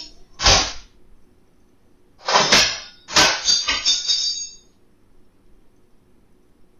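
Kitchen drawer being jolted open, with the metal cutlery inside clattering and clinking: a short knock about half a second in, then two longer rattles with ringing metal.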